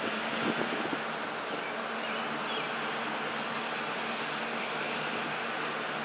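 BNSF diesel-electric freight locomotives moving slowly, a steady engine drone with a low hum. There are a few sharp knocks in the first second.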